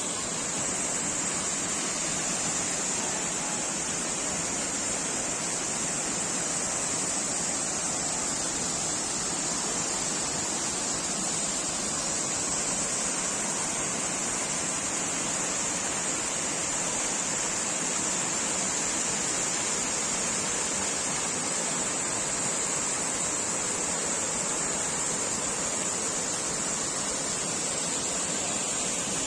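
Waterfall rushing, a steady, unbroken sound of falling water.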